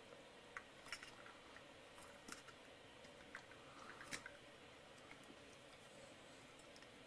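Near silence, with a few faint scattered clicks and knocks as a toy car and ice cubes bump about in a bowl of cold water.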